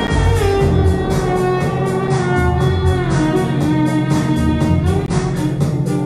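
Violin playing an improvised melody over keyboard accompaniment with a steady beat.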